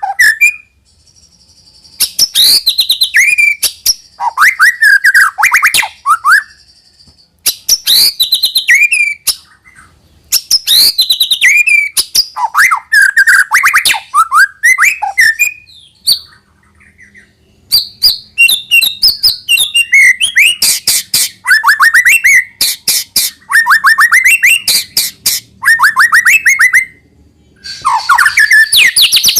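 White-rumped shama singing loud bursts of rapid, varied phrases: quick clicking notes mixed with rising and falling whistles, broken by short pauses of about a second between bursts.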